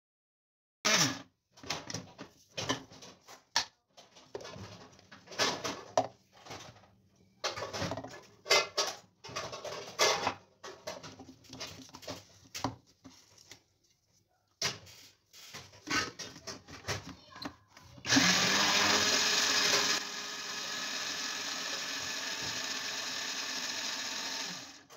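Irregular plastic clatter and knocks of a food processor bowl and lid being handled and fitted. About three-quarters of the way through, an electric blender motor switches on and runs steadily, grinding sesame into tahini paste. It is louder for its first two seconds, then settles a little lower.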